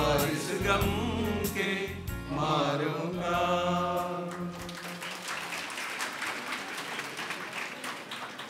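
Men's choir singing a Christmas carol in harmony over low instrumental backing, the song ending about halfway through. Audience applause follows and fades away.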